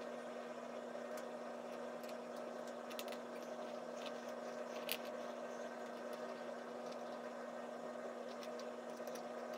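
Steady low hum with one fixed tone, with light scattered clicks and ticks from fitting the processor into the motherboard's CPU socket; the sharpest click comes about five seconds in.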